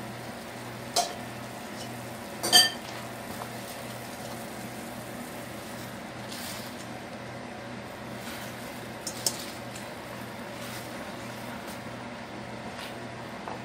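A metal ladle clinking against a stainless steel pot three times, loudest and ringing about two and a half seconds in, while greens are blanched in boiling water. Underneath runs a steady low pulsing hum.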